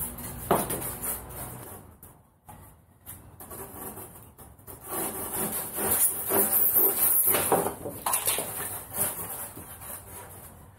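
Pieces of rigid foam board rubbing and knocking together as they are handled and stacked. About halfway through comes a louder run of scratchy strokes as a hand blade cuts through the foam.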